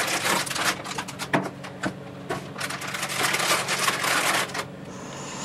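Plastic anti-static bag crinkling and rustling as a graphics card wrapped in it is lifted out of foam packing and handled, with dense crackling for about four and a half seconds before it dies down.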